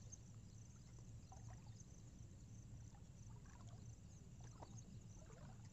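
Near silence: a faint low rumble with a few soft, scattered water sloshes, as from wading in shallow floodwater.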